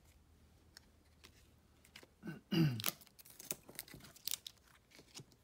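Trading cards and a card-pack wrapper being handled: a brief louder rustle about halfway, then a run of short crinkles and ticks.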